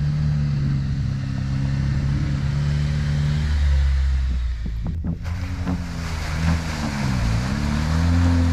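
Jeep Wrangler engine running while driving, heard from inside the cabin. The note holds steady for the first few seconds; after a brief break about five seconds in, the revs rise and fall several times. A hiss of tyre and wind noise runs underneath and grows in the second half.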